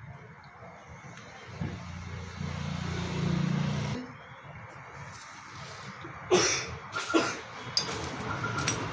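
Metal parts of a motorcycle disc-brake caliper and its pad spring clip being handled, with a low steady hum over the first four seconds. Two louder sharp noises come about six and seven seconds in, followed by a few small clicks.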